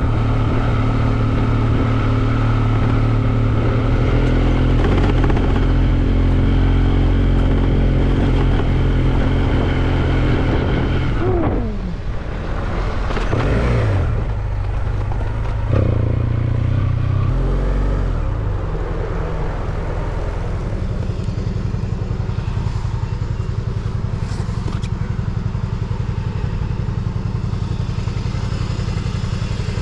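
Motorcycle engine running under way. About a third of the way in, the engine note slides down, as when slowing or changing gear, then settles into a steady, lower drone.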